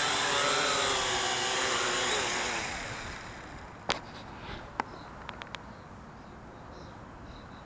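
Syma X8W quadcopter's small brushed motors and propellers buzzing with a wavering pitch, then winding down and stopping as it is brought down. A few sharp clicks and taps follow, about four and five seconds in, with a quick run of small clicks near five and a half seconds.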